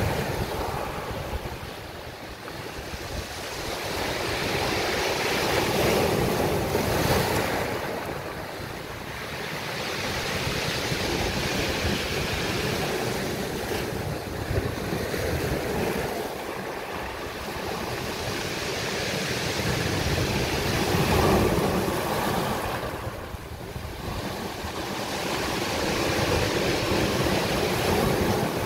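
Sea waves breaking and washing up a beach, the rush of surf swelling and ebbing every several seconds.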